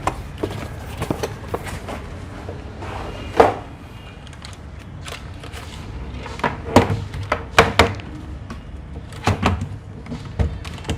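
Irregular knocks, taps and clunks of things being handled and set down on a desk, under a low steady hum. The loudest knock comes about three and a half seconds in, and there is a quick run of knocks around seven to eight seconds in.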